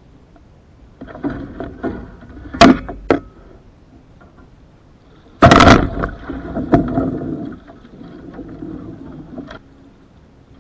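Floodwater splashing and sloshing around a capsized small duck boat as it is heaved upright by hand, with a couple of sharp knocks from the hull. The loudest moment is a heavy splash about five and a half seconds in as the boat rolls over, followed by more sloshing as it settles swamped with water.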